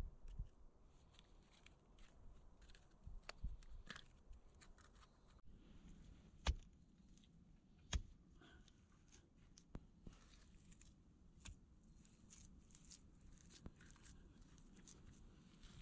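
Hands building a wall of short log rounds set in wet mud: scattered soft knocks of wood set down and rustling of mud being pressed into the joints, with two louder knocks in the middle.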